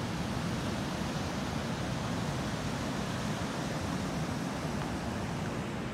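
Steady rushing of river water pouring through a dam's spillway and over the weir.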